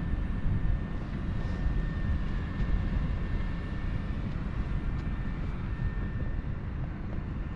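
A vehicle running, heard as a steady low rumble with a faint, steady high-pitched whine over it.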